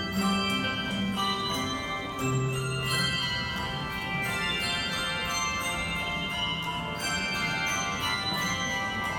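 Handbell choir playing: many handbells struck one after another, their notes ringing on and overlapping.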